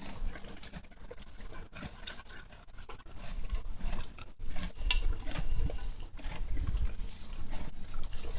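A horse chewing feed and hay, irregular crunching and munching, with low thuds from about three seconds in.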